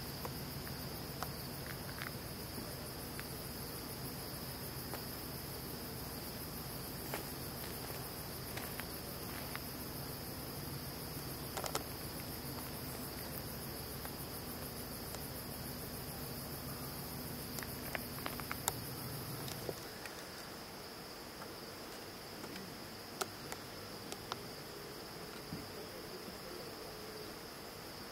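A steady chorus of crickets trilling continuously at a high pitch, over a low hum that drops away about two-thirds of the way through, with a few faint clicks.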